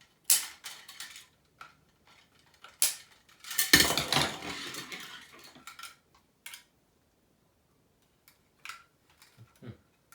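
Parts of an animatronic prop's spring-loaded pop-up mechanism being handled: a few sharp metal clicks and clinks, and a longer clattering rattle about four seconds in.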